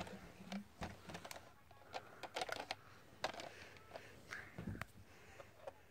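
Plastic toy truck being handled by hand: irregular light clicks and taps of hard plastic parts and wheels, bunched together about two to three seconds in.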